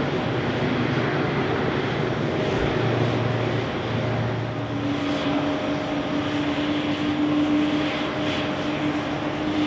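Boeing 787 jet engines on the runway: a landed 787-8 rolling out, then, about halfway, a second 787 accelerating on its takeoff roll with a steady engine whine.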